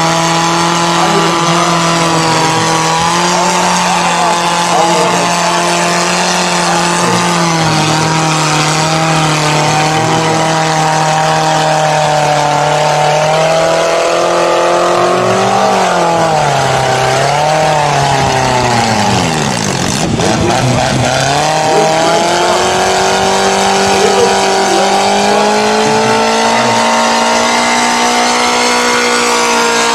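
Engine of a Suzuki Samurai mud truck on giant tractor tires, held at high revs as it lugs through deep mud. About halfway through the revs waver, drop sharply and climb back, then settle higher near the end.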